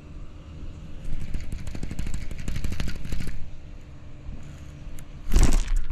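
A Lew's baitcasting reel being cranked, a fast run of fine gear clicks lasting about two seconds, while a worm is worked for a bass. Near the end comes a sudden, loud burst of noise.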